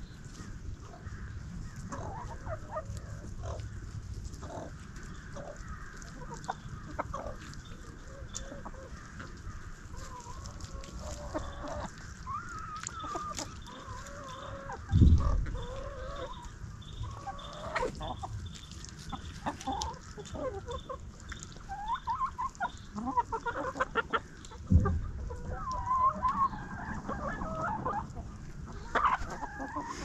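A flock of chickens, hens and a rooster, clucking and calling on and off, many short bird calls overlapping. Two dull low thumps stand out, one about halfway through and another a few seconds before the end.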